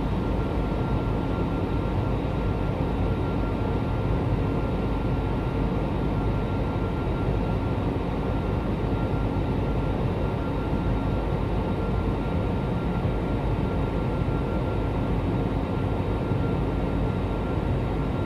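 Steady cabin noise of an Airbus A320-family jet airliner in flight, heard from inside the cabin: an even roar of engines and rushing air with a thin steady whine above it.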